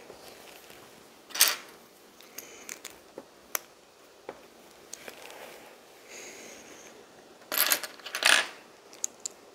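LEGO bricks clicking and clattering as pieces are picked up and pressed together, with a louder rattle about a second and a half in and another burst of clatter near the end.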